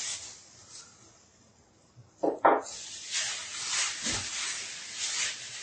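A short knock about two seconds in, then a plastic shopping bag rustling as it is handled, heard as a crackly hiss with repeated soft swells.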